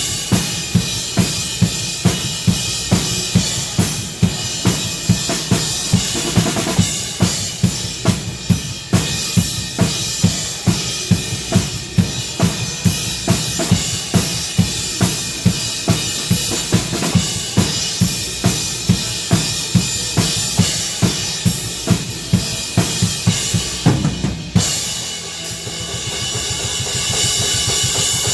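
Drum kit playing a steady beat with bass drum, snare and cymbals, about two hits a second, along with the worship-band music. About 25 seconds in, the beat drops out, leaving a softer wash of cymbal and music.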